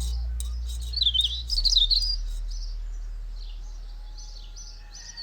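Small birds chirping in quick high twitters and trills, over a low held bass note from background music that steps down and slowly fades.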